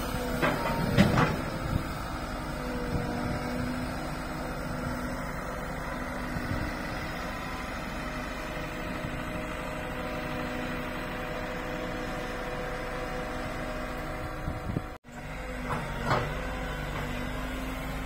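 Road-rail excavator's diesel engine running steadily with a few held tones over it, and loud metallic clanks about a second in and again near the end.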